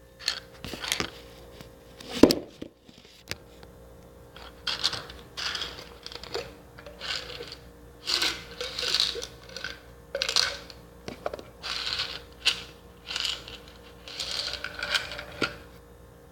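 Medicine packaging being handled: short bursts of crinkling and rattling, about one a second, with a sharp click about two seconds in.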